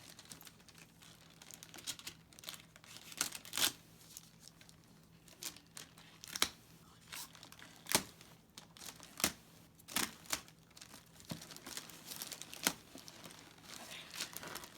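Packaging being torn and crinkled by hand as someone struggles to get a box open: irregular sharp rips and crackles.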